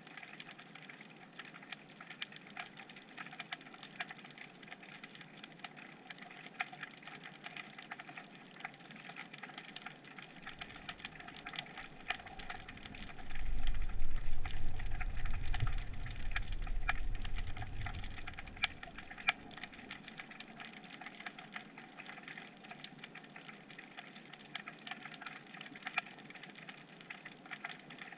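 Underwater sound picked up by a submerged camera: a steady crackle of many small sharp clicks. A low rumble swells in about a third of the way through and dies away a few seconds later.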